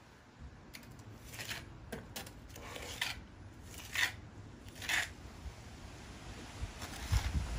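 A pointing trowel scraping wet cement into the gap around a boiler flue pipe in a brick wall, in a series of short scraping strokes roughly a second apart. It is sealing the hole where the flue passes through the wall.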